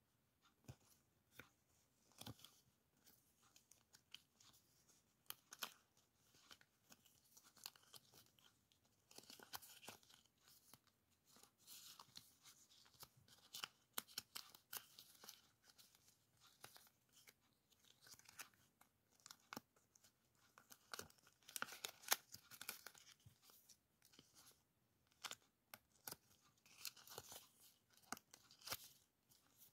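Faint, irregular crinkling and clicking of clear plastic die-cut character stickers being handled and shuffled through by hand, with busier stretches of rustling in the middle and near the end.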